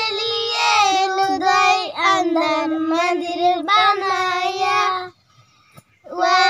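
Young girls singing a song together in held, sung phrases, breaking off for about a second near the end before starting again.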